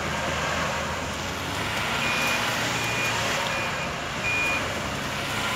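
An off-road 4x4 engine running steadily while it works in snow. About two seconds in come four short high beeps, evenly spaced like a reversing alarm.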